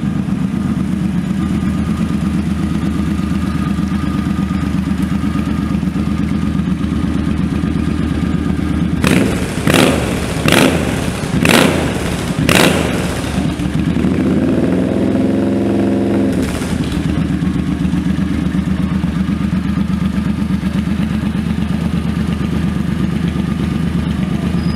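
2008 Suzuki C50 Boulevard's V-twin engine idling steadily. About nine seconds in it is blipped five times in quick succession, then revved once for about two seconds, and it settles back to idle.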